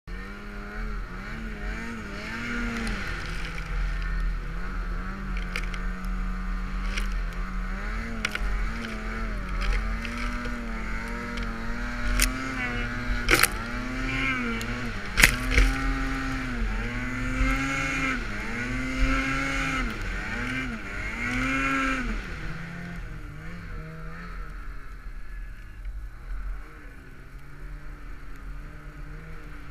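Snowmobile engine under load in deep powder, revving up and down over and over, its pitch swinging about once a second through the middle. A few sharp clicks come in around the middle. Near the end the engine drops back to a lower, steadier note.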